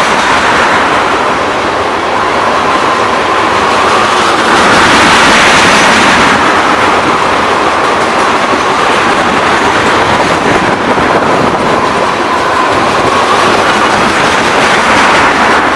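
Freight train of tank cars rolling past, steel wheels clattering over the rail joints in a steady, loud rush of noise.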